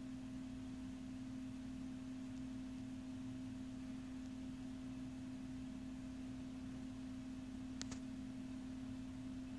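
A steady low electrical hum, one unchanging pure tone with a fainter higher one above it. A brief double click sounds about eight seconds in.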